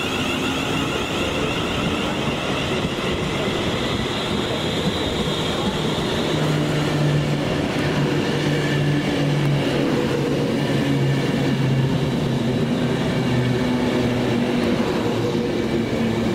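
Passenger train running through the station: steady running noise with a low hum that wavers slightly in pitch, and a high whine that fades out about six seconds in.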